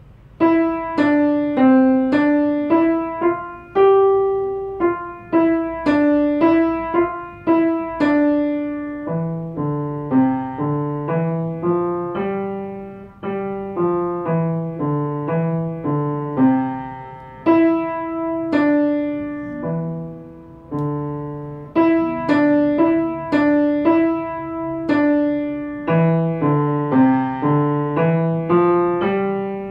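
Upright piano played by a child: a simple melody of separate notes begins about half a second in, with lower notes added beneath it from about nine seconds on.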